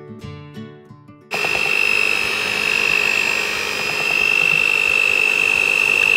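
Soft acoustic guitar music, then about a second in an electric hand mixer starts up. It runs steadily with a high-pitched motor whine, beating thick cake batter to a creamy consistency, and cuts off abruptly at the end.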